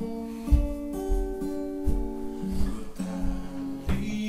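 Background music led by acoustic guitar, with several plucked notes and held chords in a slow melody.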